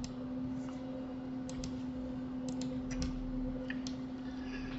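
Computer mouse buttons clicking several times, some in quick press-and-release pairs, over a steady low hum.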